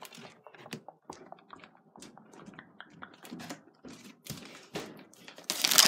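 Irregular clicks, taps and rustles of a handheld phone being carried and handled while moving, with a louder rustling burst near the end.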